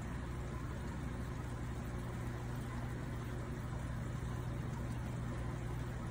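A steady low mechanical hum that does not change, with nothing else standing out.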